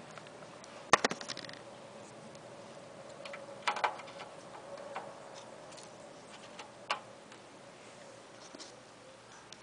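Scattered clicks and knocks of small metal and plastic parts being handled during a motherboard install: one sharp knock about a second in, a short cluster near the middle, and a last click near seven seconds.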